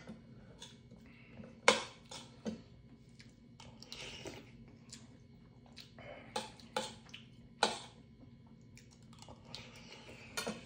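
Eating at the table: a metal spoon clicks sharply against a stainless steel bowl several times, scattered irregularly, with soft chewing and slurping noises in between.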